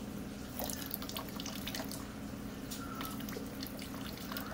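Thin stream of water trickling from a plastic bottle into a plastic bowl, with irregular drips and small splashes as a cat drinks at the stream. A steady low hum underneath.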